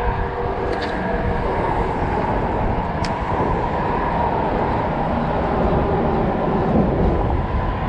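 Steady rumble of traffic crossing the concrete highway bridge overhead, with a couple of faint clicks.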